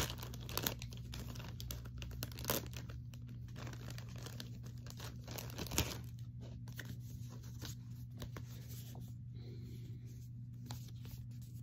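Clear plastic packaging and paper crinkling and rustling as a sticker is unwrapped and handled, in scattered short rustles with a few louder crackles. A low steady hum runs underneath.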